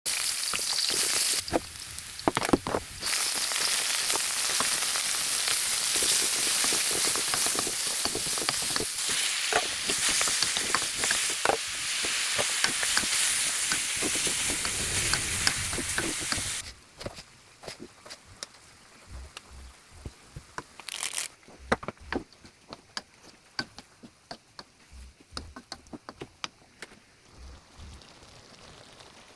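Food sizzling in hot oil in a pan, a steady loud hiss with frequent sharp pops and clicks. About two-thirds of the way through the sizzle cuts off suddenly, leaving only faint scattered clicks and taps.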